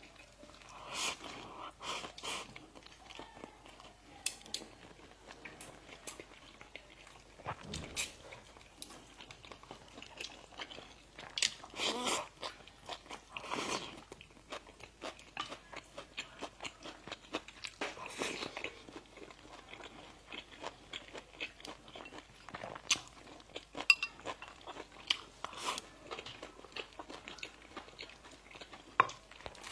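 Close-miked eating sounds of bakery bread and pastry: bites and crunchy chewing, with many small mouth clicks and a few louder bites scattered through.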